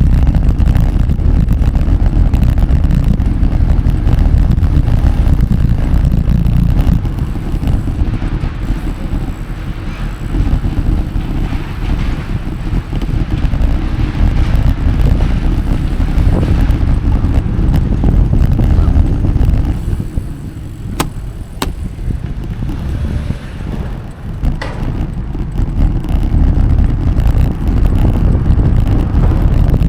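Wind rumbling on the microphone of a moving Brompton folding bicycle, over tyre and traffic noise. It eases briefly about two-thirds of the way through, where a few sharp clicks sound.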